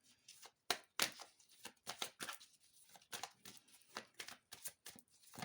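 Tarot cards being shuffled by hand: a run of short, irregular slaps and rustles of card on card.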